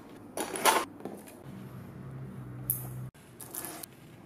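Short rustling and handling noises as small objects are picked up off a table, the loudest about half a second in. A low steady hum sounds for a second or so in the middle and cuts off abruptly.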